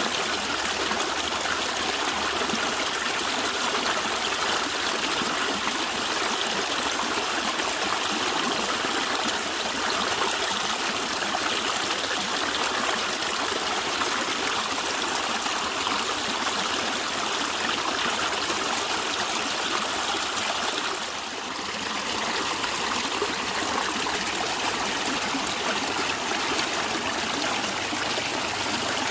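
Stream water flowing and gurgling steadily, with a brief slight lull about two-thirds of the way through.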